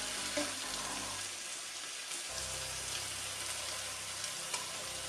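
Thin bacon rashers sizzling steadily in a non-stick frying pan with no oil, frying in their own fat, with a few faint clicks of a knife against the pan as a rasher is turned.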